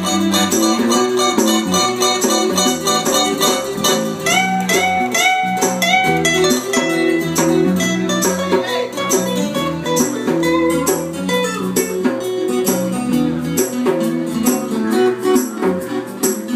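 Live acoustic guitars playing an instrumental passage, strummed chords under a picked melody, with a few bending notes about four to six seconds in.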